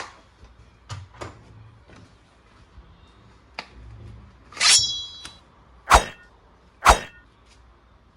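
Hard plastic toy parts being handled, giving a string of separate clicks and clacks. There is a brighter rattle with a short ringing tone a little past the middle, then two sharp knocks about a second apart.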